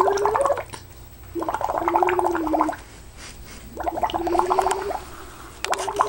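A toddler humming into her cup while blowing bubbles through the drink, a steady hummed note under a fast bubbling gurgle. It comes in bursts of about a second with short pauses between them.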